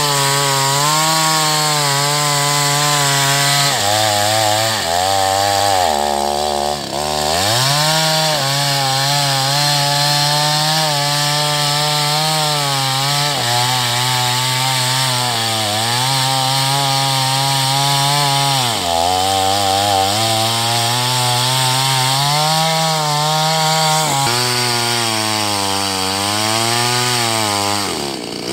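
Chainsaw running at high revs while cutting agarwood, its engine note sagging again and again as the chain bites and picking up in between. About six seconds in it drops briefly almost to idle, then revs back up.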